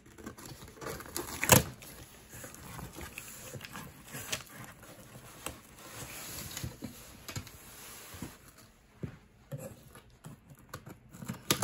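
A cardboard shipping box being opened with scissors: tape cut, then the flaps pulled back with scraping and rustling of cardboard and scattered clicks and taps. A sharp click about a second and a half in is the loudest sound.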